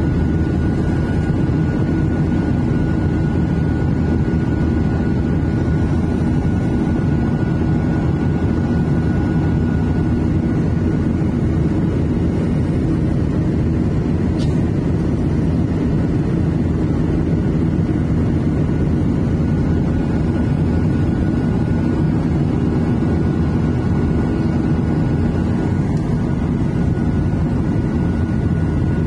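Cabin noise of a Boeing 737-800 in flight, heard from a window seat over the wing: the CFM56-7B turbofan engines and the airflow make a steady low roar with a thin steady whine above it.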